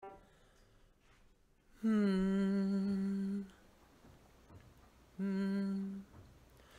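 A single voice humming one held note for about a second and a half, then the same note again more briefly, as the lead-in to an a cappella song.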